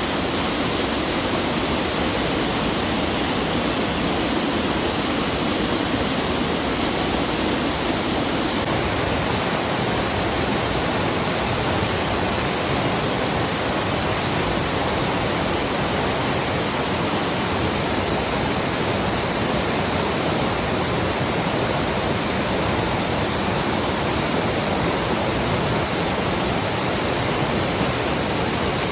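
Higure Falls waterfall: a steady, unbroken rush of falling water.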